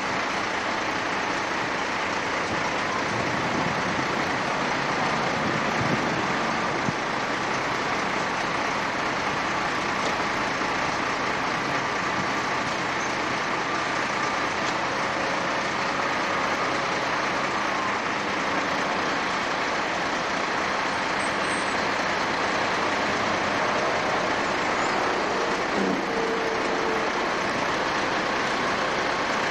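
Diesel engine of a Peterbilt tractor-trailer running as the truck drives slowly closer, under a steady, even noise.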